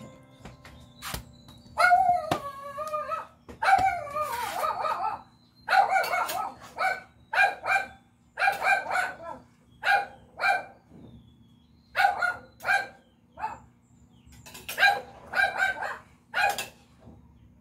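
A dog barking repeatedly in short runs of quick barks, with a few longer wavering barks about two seconds in.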